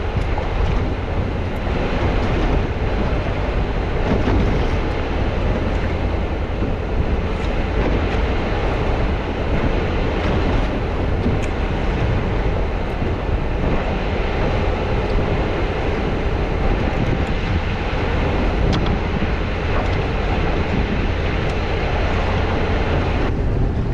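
Steady rumbling drone of a motorboat under way, with wind buffeting the microphone.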